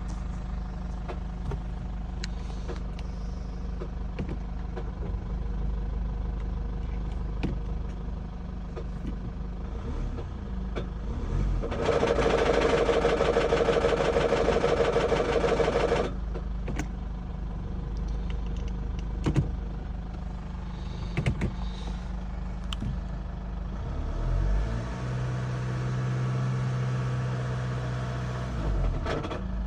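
Car engine running, with an unidentified knock heard as scattered sharp clicks. A much louder stretch of about four seconds comes near the middle, and a steady low hum rises near the end.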